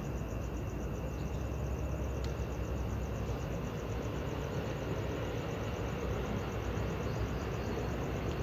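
Night ambience: a steady low hum of distant traffic, with insects chirping high in a fast, even pulse.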